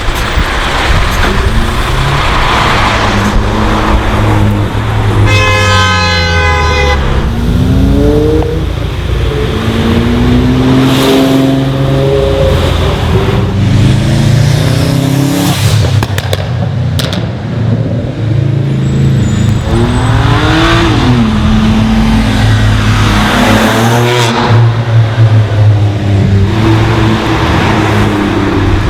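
Tuned and modified cars' engines running and revving, pitch rising and falling as they accelerate, over a steady low rumble. About five seconds in, a car horn sounds for a couple of seconds.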